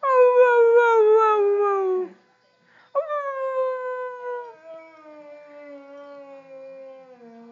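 Boxer puppy howling: a loud howl of about two seconds that slides down in pitch, a brief pause, then a second howl that starts sharply, falls slowly and trails off more quietly.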